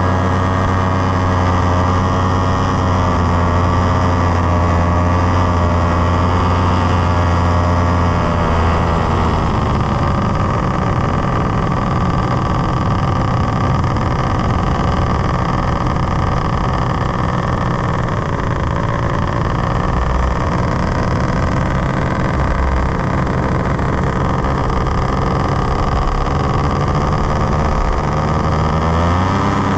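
Powered paraglider trike's engine and propeller running in flight, a loud steady drone. About nine seconds in the revs drop and the note falls and turns rougher, then the revs climb again near the end.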